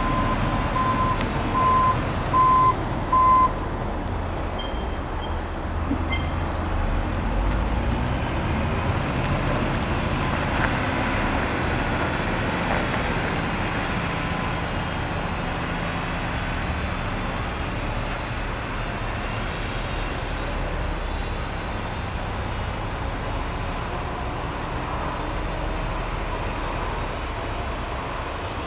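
Articulated dump truck's reversing alarm beeping four times in the first few seconds over its diesel engine running, then the engine running on steadily as the truck moves along the site road.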